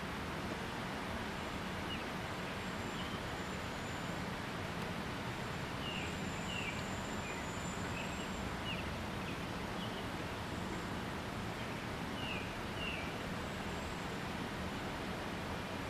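Steady outdoor background noise with a scattering of short, high peeps from Canada goose goslings, several coming in quick succession about six to nine seconds in and again a few seconds later.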